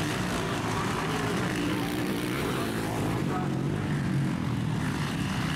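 Several motocross bikes' engines running as they race round the track, a steady blended drone of engines with no breaks.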